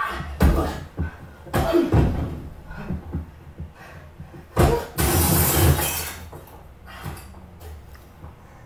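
Fight-scene impacts: several heavy blows and thuds of a body hitting the floor and wall, then a crash with a second-long burst of noise a little before five seconds in. Quieter from about six seconds on.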